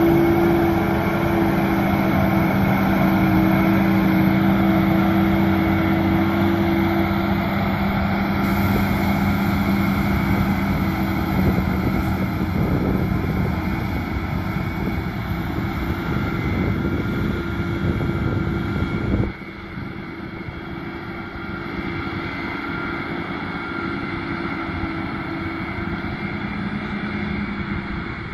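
Krone Big X 630 self-propelled forage harvester chopping grass, its engine and chopping drum making a steady hum with a whine over it, with the Fendt tractor and trailer running alongside. About two-thirds of the way through, the low rumble drops away suddenly and the sound is quieter.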